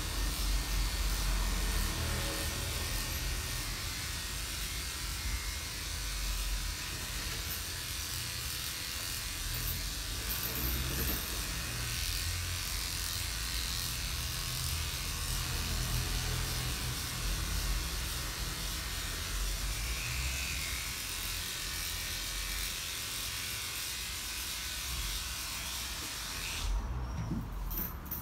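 Electric pet-grooming machine running steadily, a whirring hiss over a low hum, switched off abruptly near the end.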